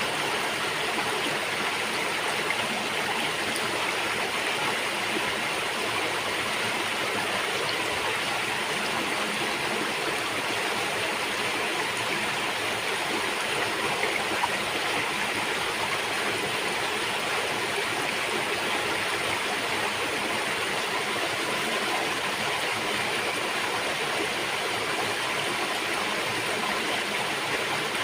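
River water flowing and rushing over rocks: a steady, even rush with gurgling.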